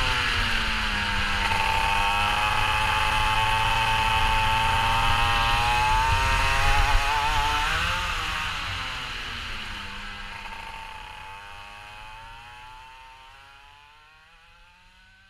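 Go-kart engine running on track, its revs dipping and climbing again twice, then fading away over the last several seconds.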